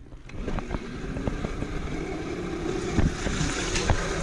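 Small electric dirt bike riding over concrete and into a drainage pipe: a steady rumble of tyres and motor that swells about half a second in, with a few sharp knocks from bumps.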